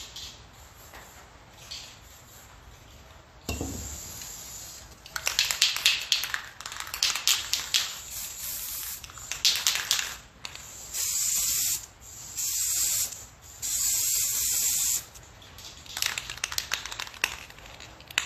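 Aerosol spray-paint can hissing in bursts. A short spray comes a few seconds in, followed by a run of quick short sprays, three longer steady sprays, and more quick short sprays near the end.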